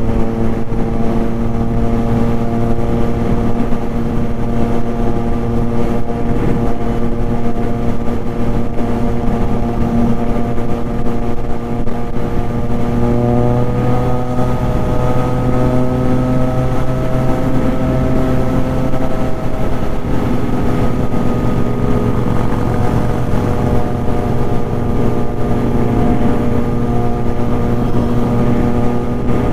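Triumph Street Triple RS's inline three-cylinder engine running steadily at highway cruising speed, heard from the rider's seat. Its note climbs gently about halfway through, then drops back a few seconds later and settles.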